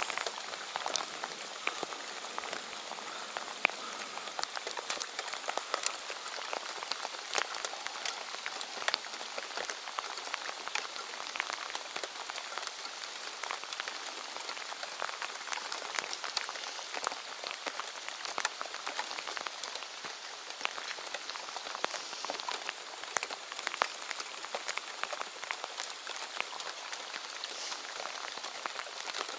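Heavy rain falling on a lake surface: a steady hiss with many sharp ticks of drops striking close by.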